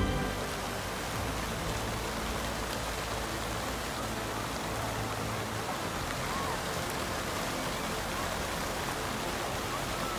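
Rows of fountain jets spraying into a large shallow pool, a steady hiss and splash of falling water.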